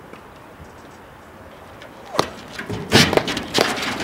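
A platform tennis paddle hits the ball once about two seconds in, followed by a quick, busy run of further sharp knocks and clatter.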